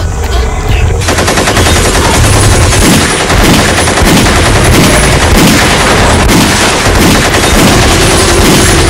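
Sustained rapid automatic rifle fire, a continuous run of shots that starts about a second in, over a low rumble.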